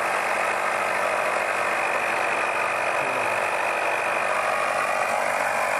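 Automotive smoke leak-detection machine running, a steady hissing hum as it pumps smoke into the engine's intake to find a vacuum leak.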